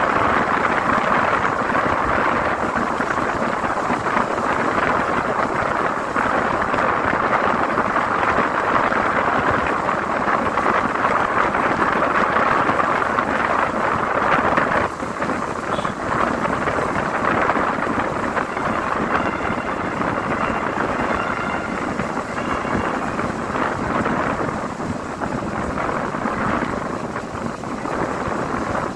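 Steady rushing wind and road noise from a moving vehicle, with a brief dip about halfway through.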